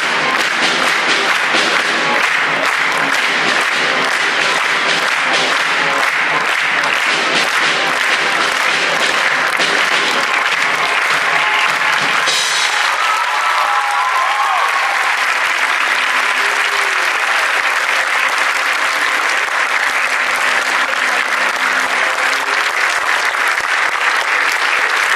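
Audience applauding steadily, with music playing under the clapping that stops about halfway through.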